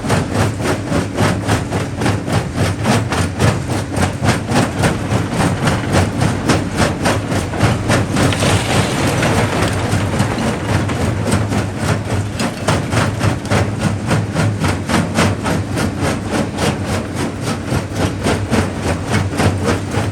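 Jaw crusher running at a quarry, crushing rock: a deep, steady machine hum under an even, rapid knocking, a few knocks a second. About eight seconds in, a gritty rush of grinding, falling stone swells for a couple of seconds.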